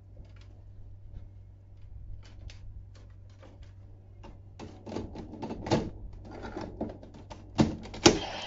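Hard plastic toy parts clicking and snapping as claw pieces are pressed onto their pegs on a DX Tridoron toy car. It is a run of small irregular clicks, with a few sharper snaps in the last few seconds.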